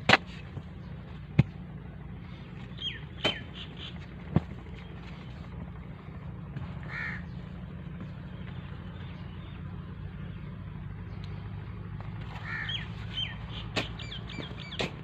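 Birds calling in short, repeated chirps, with a cluster of calls near the end, over a steady low hum. A few sharp clicks sound in the first few seconds.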